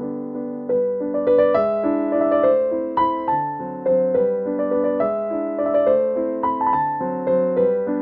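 Background piano music: a melody of struck notes over held chords, new notes coming about every half second.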